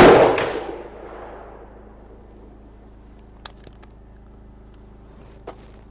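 A single shot from a Thompson/Center Contender single-shot pistol, its loud report ringing and dying away over about a second and a half. A petrol generator hums steadily underneath, and two faint clicks come later.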